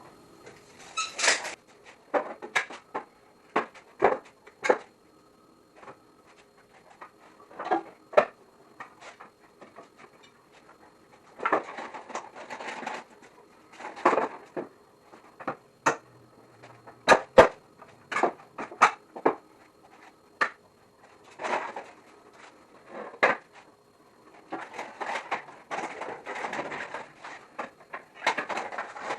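Irregular knocks, clacks and short scraping or sliding sounds of wood and tools being handled and set down. There is no power tool running.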